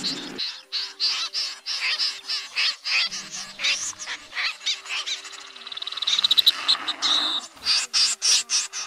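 Snipe calls from a bird-trapping lure recording: many short harsh calls overlapping in a dense run, with a quick rattling trill about six seconds in.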